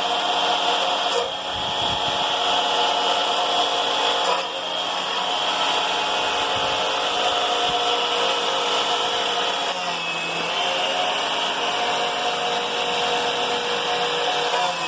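Homemade stainless-steel wood chipper driven by a 9-inch angle grinder, running with a steady motor whine while shredding wood. The level dips briefly about a second in and again about four seconds in.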